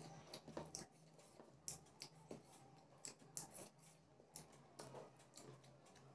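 Faint, sparse wet clicks and squishes of someone eating rice with their hands: fingers mixing rice and curry on a plate, and mouth sounds of chewing.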